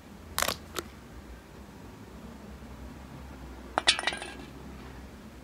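Light metallic clinks: two sharp ones near the start, then a quick jingling cluster about four seconds in.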